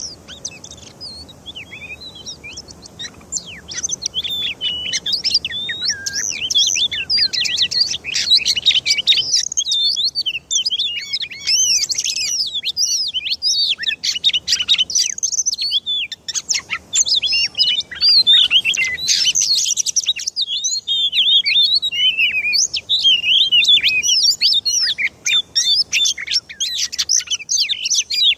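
Oriental magpie-robin (kacer) singing: a long, rapid, varied stream of chirps and whistles that gets louder a few seconds in and keeps going with only brief breaks.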